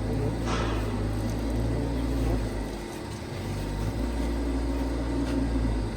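Steady low-pitched machine drone, with a brief hiss about half a second in.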